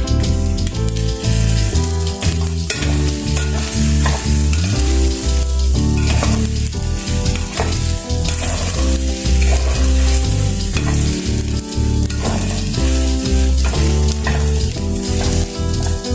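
Paella ingredients sizzling in hot oil in a pan, stirred with a utensil, with frequent short scrapes, over background music.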